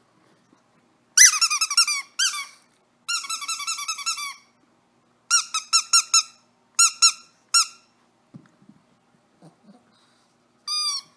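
Yellow rubber squeaky toy squeaked in quick runs of short, high squeaks, several a second, in about five bursts with pauses between. A last short squeak near the end comes as the dog has the toy in her mouth.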